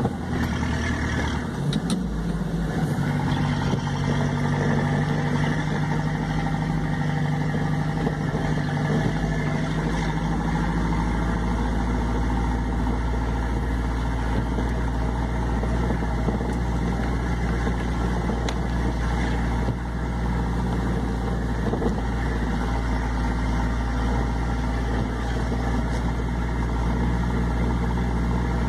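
A vehicle's engine and road noise while driving, heard from inside the vehicle. The engine note shifts during the first ten seconds or so, then holds at a steady hum.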